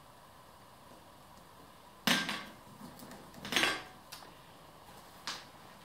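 Smooth calf leather tote being set down on a stone tabletop and opened: a sharp knock about two seconds in, a louder scuffing handling noise a second and a half later, then two light clicks.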